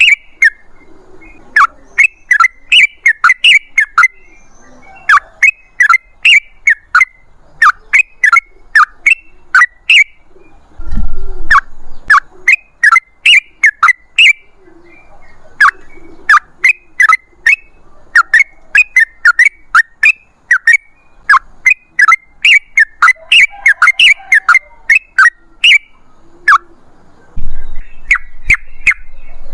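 Yellow-vented bulbul (trucukan) singing a long rapid run of short, sharp chattering notes, several a second, in phrases broken by brief pauses. A low thud sounds about eleven seconds in and again near the end.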